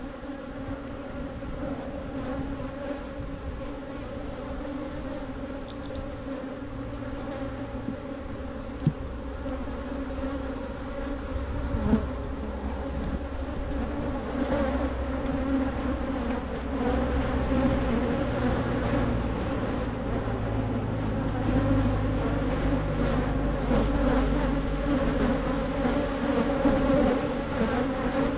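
Honey bees buzzing around an open hive, a steady droning hum that grows louder in the second half. The colony is agitated by the inspection.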